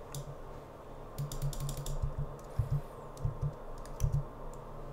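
Clicks of a computer keyboard and mouse being worked at a desk: a quick run of clicks about a second in, then scattered single clicks, over a low steady hum.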